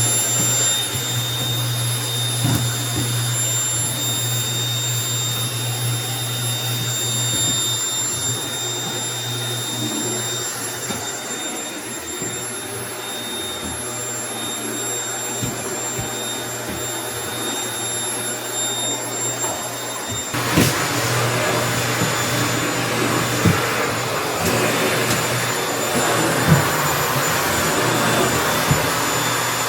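Household vacuum cleaner running steadily with a high motor whine. About two-thirds of the way through the sound turns louder and rougher, with a few small ticks.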